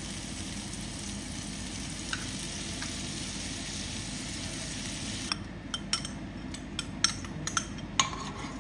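Chopped garlic sizzling steadily in hot oil in a nonstick frying pan. About five seconds in the sizzle dies down as orange juice goes into the pan, leaving scattered sharp ticks and pops.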